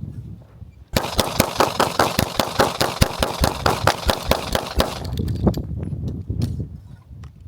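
Rapid gunfire: a fast string of shots, several a second, starting about a second in and stopping after about four seconds.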